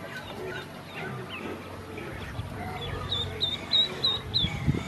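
Ducklings peeping as they feed in a stainless steel bowl, with a run of five high peeps about three a second past the middle. Soft irregular knocks come from bills pecking feed against the metal.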